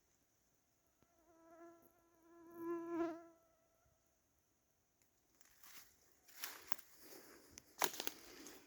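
A flying insect such as a fly or bee buzzes past the microphone, swelling and fading over about three seconds. About halfway through, dry leaves and twigs start to crackle and rustle in irregular bursts.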